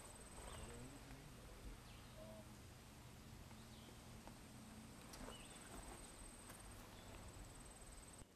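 Near silence outdoors: a faint, high, steady insect buzz that comes and goes, with a few short bird chirps and the odd soft click.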